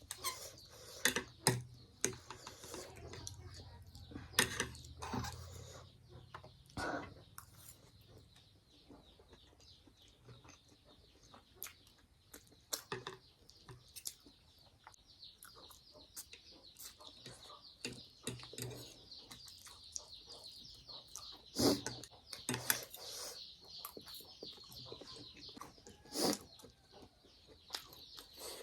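Eating sounds: chewing and slurping, with scattered sharp clicks of a spoon or fork against a plate.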